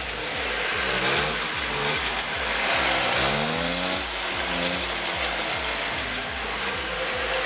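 Motobécane Mobylette Cady moped's two-stroke single-cylinder engine running at idle, a steady low pulsing with its pitch rising and falling twice. The owner praises it as a very good idle.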